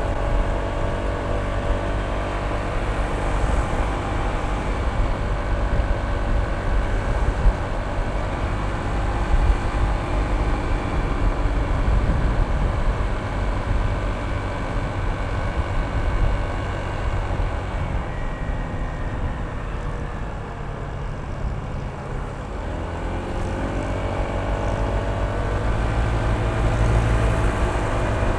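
Honda ADV160 scooter's single-cylinder engine running under way, with low wind rumble on the microphone. About two-thirds of the way through the engine note falls away as the rider eases off, then rises again as the scooter accelerates.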